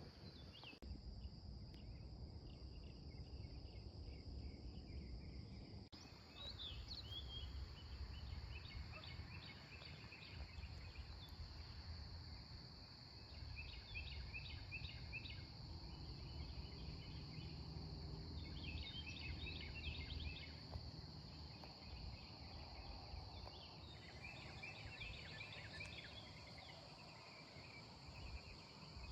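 Faint outdoor ambience: a steady high insect drone, scattered chirps of small birds, and a low rumble underneath.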